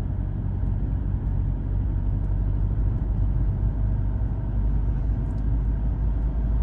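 Steady low rumble of a car's engine and tyres, heard from inside the cabin while it drives.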